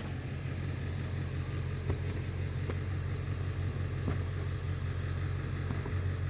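A steady low mechanical hum, like a motor running, with a few faint ticks.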